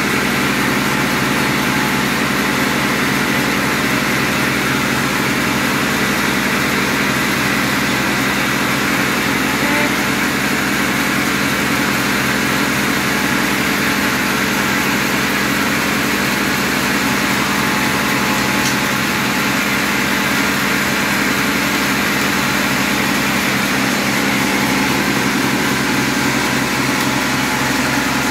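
Band sawmill machinery running steadily, idling with no cut under way.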